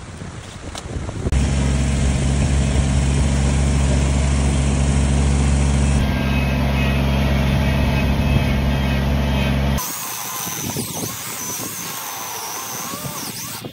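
Tractor engine running steadily from about a second in, cutting off abruptly near ten seconds. After that come quieter work sounds with a faint wavering whine.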